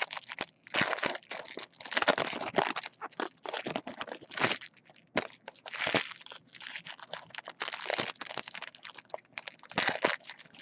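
2016 Topps Finest card pack wrappers being ripped open by hand, crinkling and tearing in irregular bursts.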